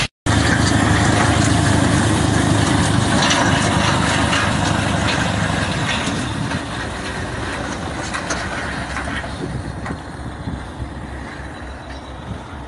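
Large wheeled tractor's engine running under load as it drags a heavy implement through snow: a steady, noisy low rumble that slowly fades over the second half.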